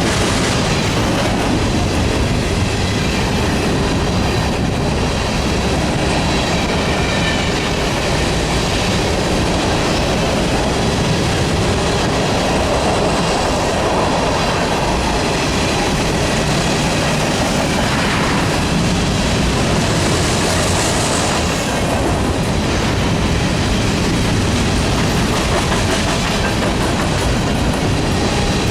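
Freight train of covered grain hopper cars rolling past at speed, a loud, steady rumble of wheels on rail.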